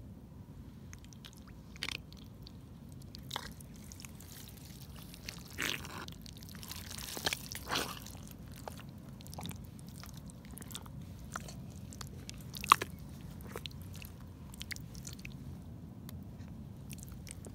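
Rubber wellington boots squelching and shifting in thick wet mud: scattered wet smacks and sucking pops, a cluster of them about 7 to 8 seconds in and one sharp loud pop near 13 seconds.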